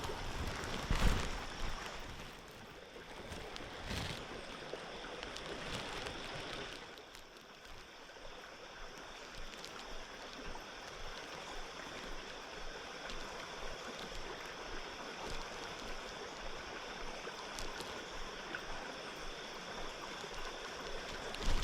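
Steady rush of a shallow creek's flowing water. A few low bumps come in the first few seconds.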